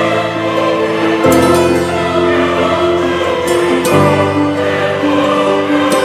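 Background music: a choir sings sustained chords that change about every two and a half seconds.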